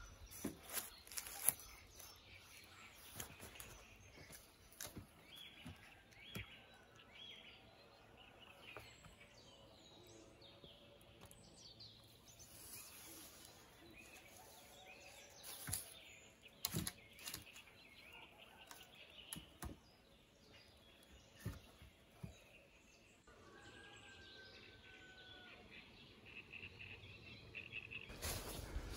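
Faint forest ambience with scattered faint bird calls and chirps. It is broken by a few sharp knocks or clicks, the loudest two about halfway through.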